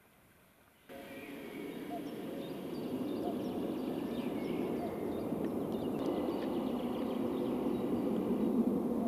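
Small birds chirping and singing over a steady rushing drone that swells slowly; the sound cuts in suddenly about a second in, out of near silence.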